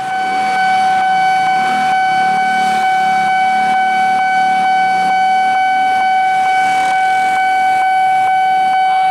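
Railway level-crossing warning alarm sounding one steady, unbroken electronic tone, signalling that a train is approaching. Motorcycle engines idle faintly underneath.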